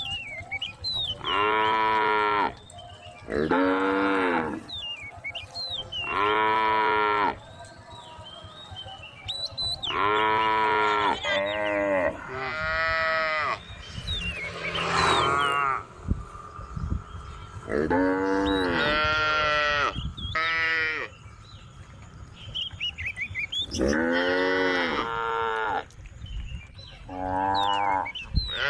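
A group of cows mooing in turn, about a dozen drawn-out calls of a second or so each, some overlapping, with brief high chirps between the calls.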